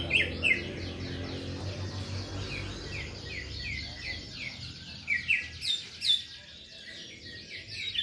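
Canaries singing: a fast, continuous run of short down-slurred chirps, with a few louder notes near the start and about five to six seconds in.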